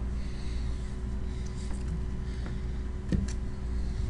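Room tone: a steady low hum and faint hiss, with one faint click about three seconds in.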